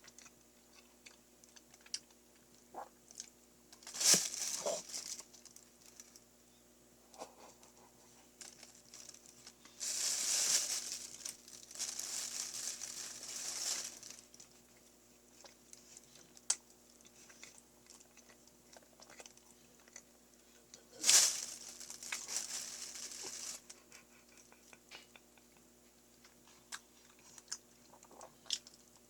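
Close-miked eating of a mass of mashed Choco Pies: soft chewing and small clicks, broken by a few louder crinkling, rustling bursts, the longest from about ten to fourteen seconds in and another around twenty-one seconds in.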